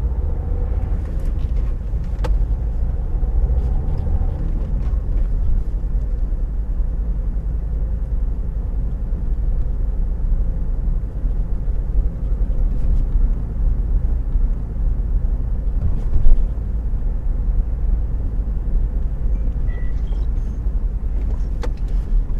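Car engine and tyre rumble heard inside the cabin while driving, a steady low drone with a few light clicks.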